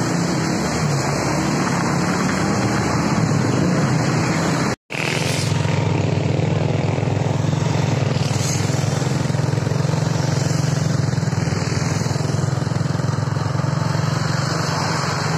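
Steady road-traffic and vehicle engine noise from moving trucks and other vehicles. It cuts out abruptly for a moment just under five seconds in, then resumes.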